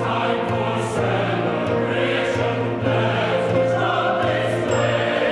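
Chamber choir singing with a string quartet accompanying, sustained chords shifting over a moving low line, with the singers' s-consonants audible.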